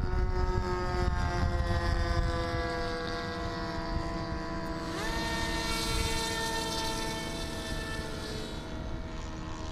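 Model airplane's motor and propeller whining steadily, then stepping up in pitch about five seconds in as it is throttled up for a hand launch, with a rush of propeller wash that fades near the end.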